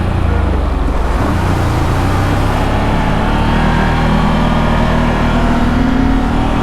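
ATV engine running steadily under way on a rough road, with a continuous low rumble and ride noise.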